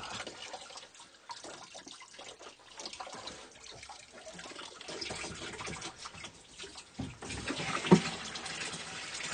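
Seawater flooding in through a broken seacock's torn tailpipe with its bung pulled out, running like an open tap and growing stronger in the second half, with hands working around the fitting. A single sharp knock about eight seconds in is the loudest moment.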